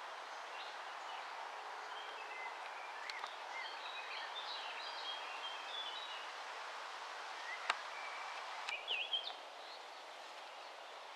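Small birds chirping and twittering in short high notes, scattered over a steady outdoor background hiss. A sharp click comes about two thirds of the way through, and a few louder chirps follow just after it.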